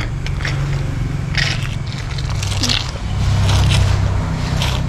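A child sucking the last drops from a foil drink pouch through its straw, in several short noisy slurps, with the pouch crinkling as it is squeezed. A steady low hum runs underneath.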